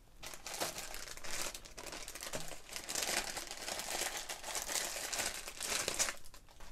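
Clear plastic bag crinkling and rustling as it is handled and opened by hand, with its contents pulled out. The crackling goes on almost without a break and dies away near the end.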